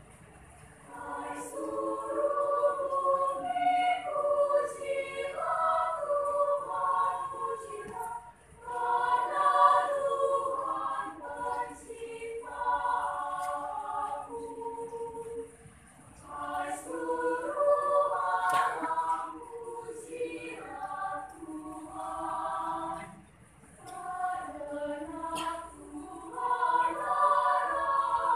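Children's choir singing in several voice parts, phrase by phrase with short breaths between phrases; the singing begins about a second in.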